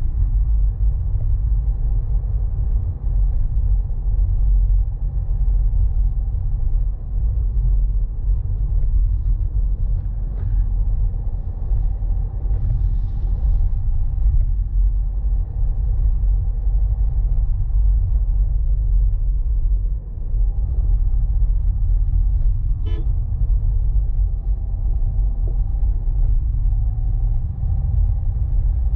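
Steady low rumble of a vehicle driving along a paved mountain road, engine, tyre and wind noise blended together as picked up by a camera mounted on the vehicle. A single short click about three-quarters of the way through.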